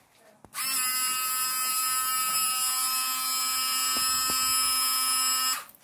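Small electric water pump of a motion-triggered cat deterrent running with a steady high whine for about five seconds, starting about half a second in and cutting off sharply: the PIR sensor has switched the pump on for its five-second squirt of water through the nozzles.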